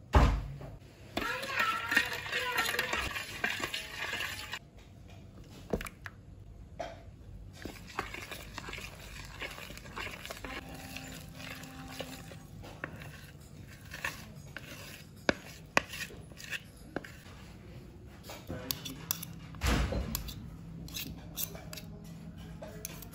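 Metal spoon clinking and scraping against a glass mixing bowl while stirring flour into yeast water to make a thick dough, in many short, irregular clicks.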